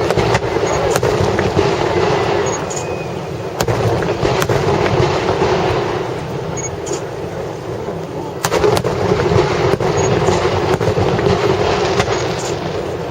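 Fireworks bursting: a run of sharp bangs at irregular intervals, with a few louder reports about 8 to 9 seconds in, over a steady rumble of echoing blasts.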